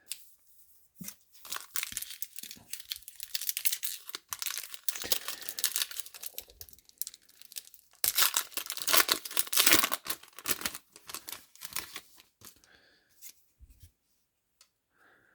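Wrapper of a 2018 Topps Series 1 baseball card pack being torn open and crinkled, in two long stretches of crackling about a second apart, then a few light ticks near the end.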